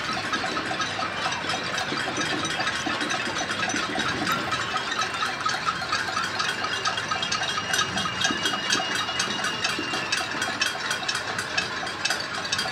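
Many people striking pots and pans with spoons from the surrounding apartments, merging into a continuous metallic clatter of countless small ticks and bangs. This is a nightly pot-banging protest.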